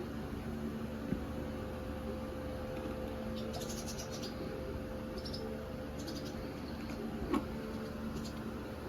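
Quiet room tone with a steady low hum and faint high-pitched chirps in short clusters. There is a brief louder sound about seven seconds in.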